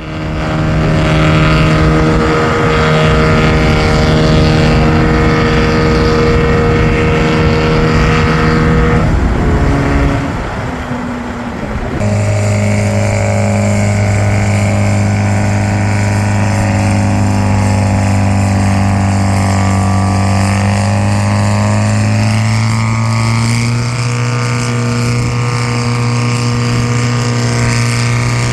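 Engine of heavy silage-harvesting farm machinery running steadily under load. The pitch dips and wavers about nine to ten seconds in. From about twelve seconds in a deeper, steady drone takes over.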